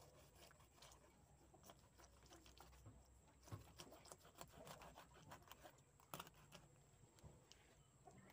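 Faint knife work on a tilapia against a wooden cutting board: scattered small cracks and scrapes as the blade splits the fish open, with a sharper click about six seconds in.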